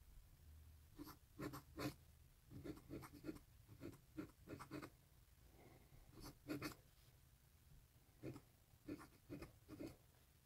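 Faint scratching of a pointed calligraphy dip-pen nib on paper, in short strokes a few at a time with brief pauses between letters.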